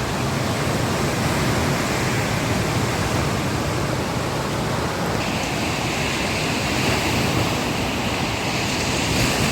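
Steady rushing of sea surf on a sandy beach, with wind on the microphone; the hiss turns a little brighter about halfway through.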